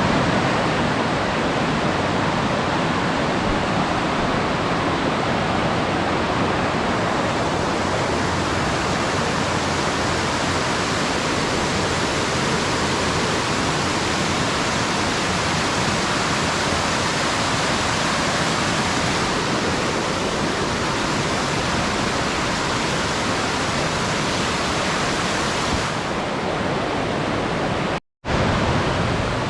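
Loud, steady rush of a tall waterfall with an 84-metre drop, falling water with no other sound over it. The sound cuts out for a split second near the end and then resumes.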